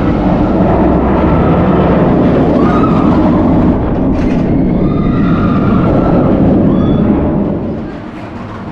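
Bolliger & Mabillard inverted roller coaster train running along its steel track, a loud rumble that fades away near the end.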